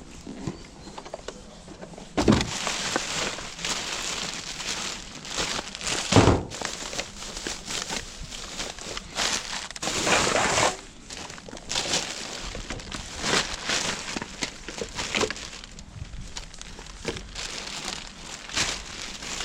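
Rummaging through a bin of rubbish: plastic and paper rustling and crinkling, with a couple of sharper knocks about two and six seconds in.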